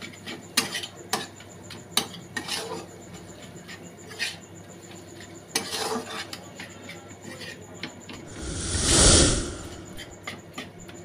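Metal spatula scraping and clicking against a wok as cooked chicken mince filling is stirred. About eight seconds in, a louder rush of noise swells and fades over a second or so.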